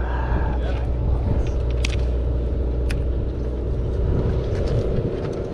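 Steady low drone of a sportfishing boat's engine machinery, with a few light clicks.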